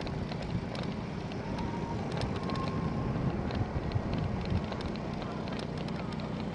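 Wind rushing over the microphone of a camera on a cyclocross bike riding across bumpy grass, with a low rolling rumble and frequent small clicks and rattles.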